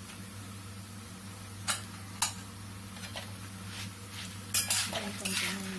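A flat spatula scraping and knocking against a kadai as dried red chillies, coriander seeds and lentils are stirred while they roast in a little oil. Two light knocks come about two seconds in, then a run of louder scrapes and clacks near the end, over a steady low hum.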